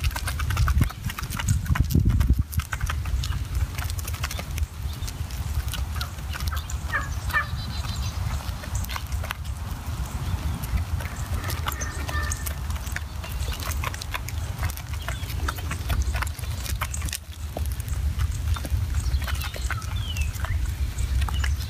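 Wild turkey flock foraging on gravel: many small irregular clicks from pecking and footsteps, with a few short calls, over a steady low rumble.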